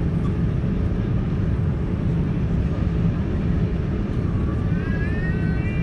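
Steady low rumble of a Boeing 787-9 airliner in flight, heard from inside the cabin. Near the end a brief high, slightly rising sound rides over it.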